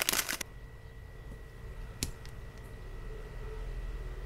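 Plastic or paper packaging crinkling briefly, then a single click about two seconds in, over a low steady room hum.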